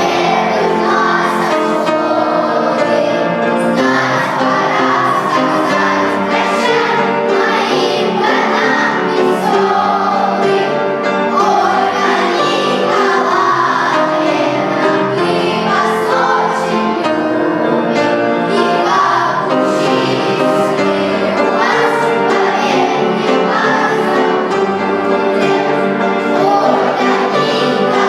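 A group of children singing a song together with musical accompaniment.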